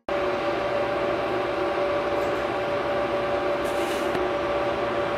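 FS class E652 electric locomotive at the head of a freight train, running with a steady, even hum. A brief hiss comes about four seconds in.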